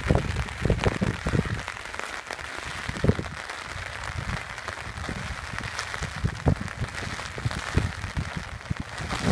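Hail pattering steadily on an umbrella, with irregular low thumps of wind buffeting the microphone.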